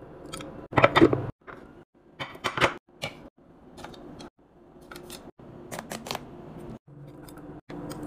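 Short crinkles, taps and clicks of deli meat being handled from its plastic packs and laid into glass storage containers, with the loudest rustle about a second in. The sound cuts out abruptly several times.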